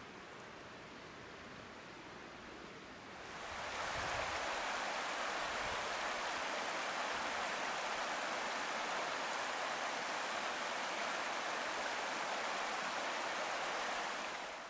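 Chehalis River floodwater rushing across a paved road: a steady rushing noise that comes in about three seconds in, after a quieter stretch of faint outdoor background.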